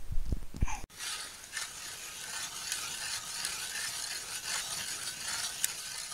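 Hand ice auger cutting into lake ice: a steady scraping with small ticks as the blades bite. A few low knocks come in the first second, before the scraping starts.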